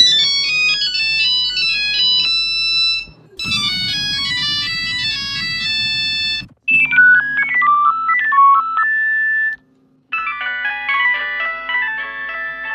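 Nokia phone ringtone played in four successive versions, each a short synthesized melody of about three seconds, with brief gaps between them.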